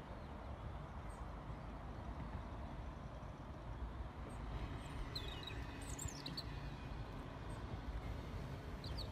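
Steady low outdoor rumble, with small birds chirping briefly about halfway through and again near the end.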